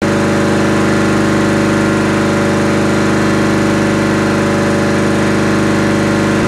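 Hatlapa V150 marine piston air compressor running steadily, a loud even mechanical hum with a rapid regular beat.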